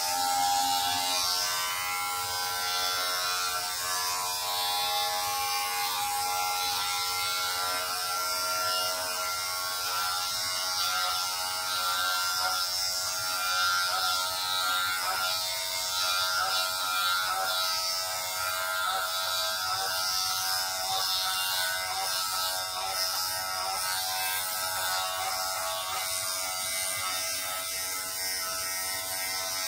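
Electric hair clipper switched on and running with a steady buzz as it shaves a man's head down close to the scalp.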